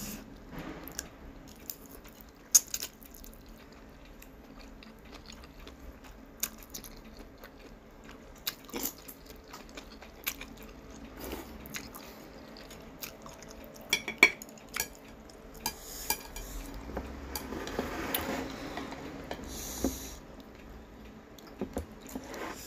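A person eating spicy instant noodles close to the microphone: chewing and slurping noodles, with scattered sharp clicks of chopsticks against a plate.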